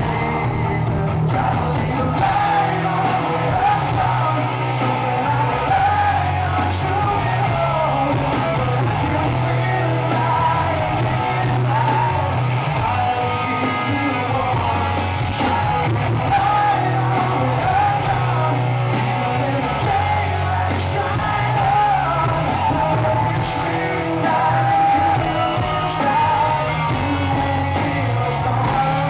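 Live rock band and male lead singer performing a ballad-paced rock song in a large hall, recorded from among the audience, with some yelling from the crowd.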